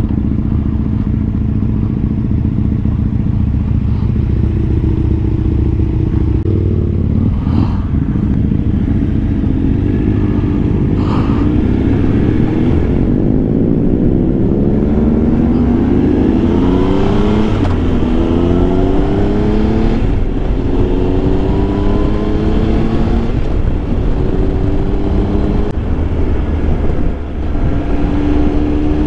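Triumph Tiger Explorer 1200's three-cylinder engine accelerating through the gears, its pitch rising and dropping back at each upshift, over steady wind and road rumble.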